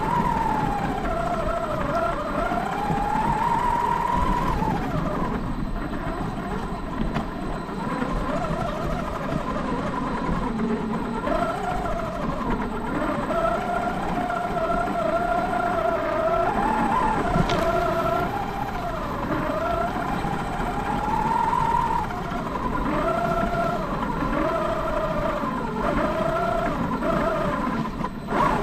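Large RC car's motor and drivetrain whining, the pitch rising and falling again and again as the throttle changes, over a steady low rumble of the tyres running through snow.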